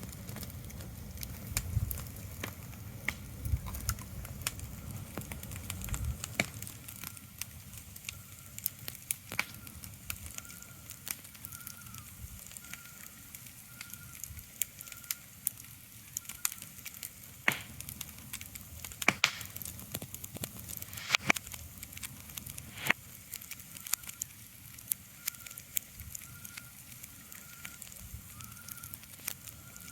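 Irregular crackling with sharp pops, like a wood fire burning, over a faint hiss. A faint high chirp repeats about twice a second in stretches. A low rumble fades out about six seconds in.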